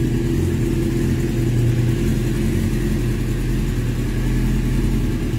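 Suzuki GSX-R750 SRAD inline-four engine idling steadily through an aftermarket Micron exhaust, a low, even exhaust note that holds one speed throughout.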